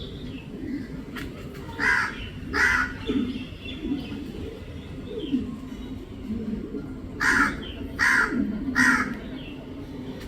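Crow cawing: two harsh caws close together about two seconds in, then a run of three caws about seven seconds in.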